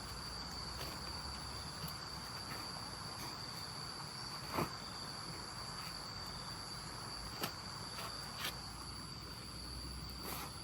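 Insects, such as crickets, making a steady high-pitched drone over a rural background, with a few sharp knocks scattered through it.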